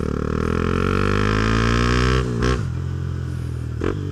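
Honda CB Twister's single-cylinder engine running through a Protork Mine 3 aftermarket sport exhaust, its pitch rising steadily under acceleration for about two seconds. It then drops sharply with a short burst and settles to a lower, steadier note, with another brief burst near the end.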